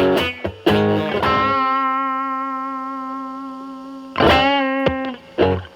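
Telecaster played through a Fender Pugilist distortion pedal in series mode (Gain A at about 11) into a Marshall Valvestate amp's clean channel. A few short distorted notes give way to a long sustained note that slowly fades, then another held note about four seconds in that wavers slightly, and a few short notes near the end.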